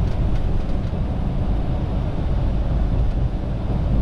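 Semi-truck driving along: a steady low engine and road rumble, with a few faint ticks or rattles near the start.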